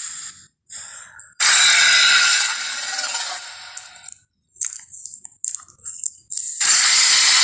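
Jurassic Park Tyrannosaurus sound effects: a loud, hissing blast that fades over a couple of seconds, scattered short clicks, then another loud hissing blast near the end.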